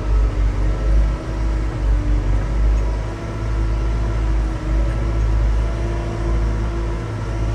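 Telehandler's diesel engine running steadily as the machine is driven, a deep rumble with a steady whine over it, heard from inside the cab.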